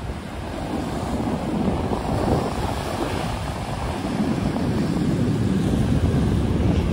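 Strong wind buffeting the microphone in a constant low rumble, over surf breaking and washing up a sand beach, with the hiss of the surf swelling midway.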